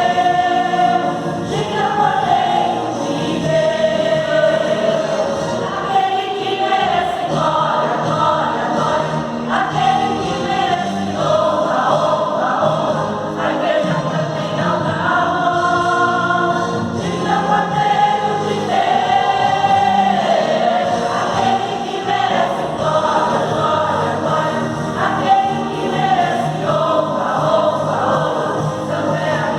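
Church choir singing a gospel praise song, many voices together on long held notes that move from phrase to phrase.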